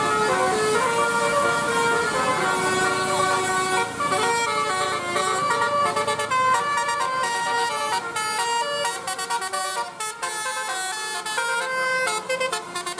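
Basuri-style telolet bus horn, a set of electric trumpet horns playing a melody in distinct stepped notes. From about four seconds in the notes turn into a quick run of short, choppy toots.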